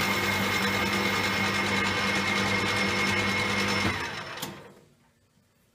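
Metal lathe running steadily with a constant whine while taking a facing cut. It is switched off about four seconds in and spins down to a stop, with a single click as it winds down.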